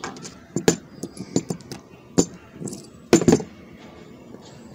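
Steel pliers clicking and clinking against a padlock as they work at it, a series of irregular sharp metallic taps with a loud double click about three seconds in.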